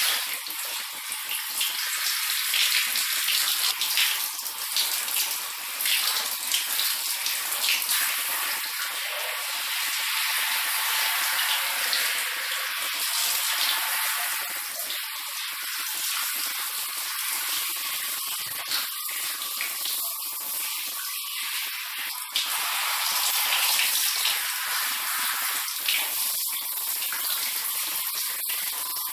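Handheld shower hose spraying a steady hiss of water over a wet dog and onto a tiled floor, rinsing the shampoo out of its coat.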